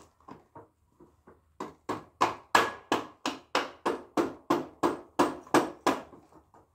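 Swing arm pivot bolt of a Suzuki RM250 dirt bike being hammered through the frame: a few light taps, then about fourteen sharp strikes at about three a second, starting about a second and a half in.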